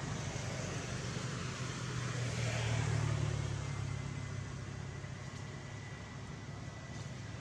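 Steady low rumble with a hiss over it, swelling for a moment about three seconds in; a faint thin high tone comes in halfway through.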